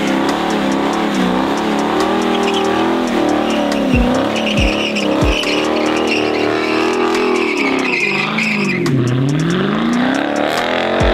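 Dodge Challenger's engine revving up and down hard during a burnout, with its rear tyres spinning and squealing. The squeal is strongest in the middle, and the revs drop sharply and climb again near the end.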